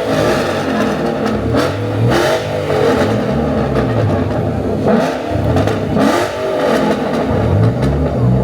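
Tuned import car engines revving hard again and again, the pitch climbing and dropping about once a second, with several sharp cracks between the revs.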